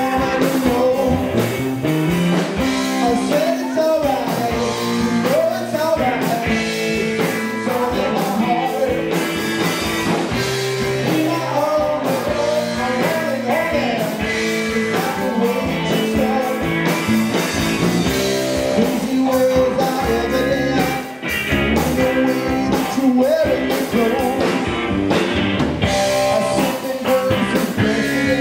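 Live band playing amplified rock music: electric guitar, bass guitar and drums, with singing. The band drops out for a moment about two-thirds of the way through, then comes straight back in.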